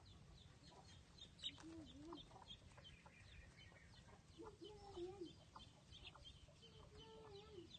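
Young chickens clucking faintly: three soft, drawn-out wavering calls, over a scatter of faint short high chirps.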